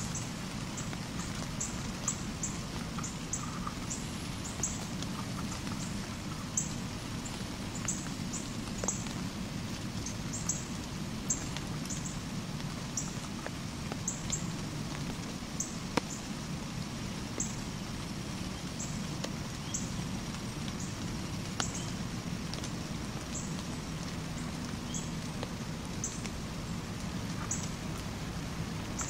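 Outdoor woodland ambience: a steady low hiss with faint, irregular high-pitched ticks about once or twice a second and an occasional sharp click.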